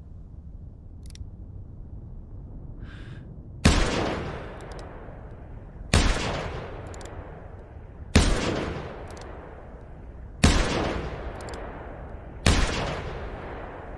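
Handgun sound effect: five single shots about two seconds apart, each with a ringing tail that dies away over about a second, and faint small clicks between the shots.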